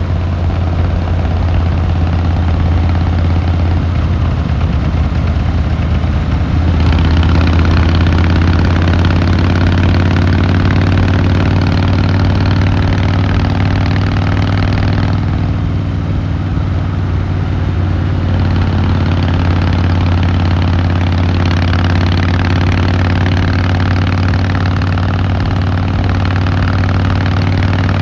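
Harley-Davidson Fat Boy Lo V-twin engine and exhaust running under way. It gets louder and fuller about seven seconds in, eases off for a few seconds a little past the middle, then pulls again.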